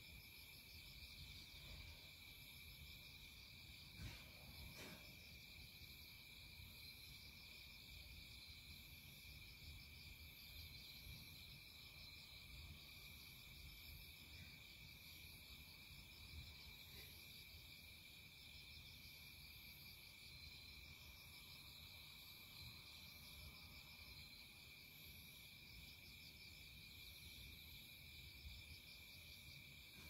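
Faint chorus of crickets and other insects: a steady high trill with pulsing chirps layered above it, over a low rumbling background. Two soft knocks about four and five seconds in.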